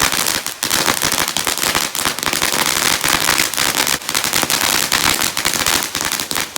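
Consumer ground firework crackling: a dense, continuous stream of small rapid pops.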